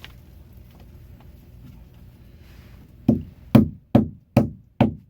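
Hammer driving a cable staple into wood: five quick, sharp blows about two a second, starting about three seconds in.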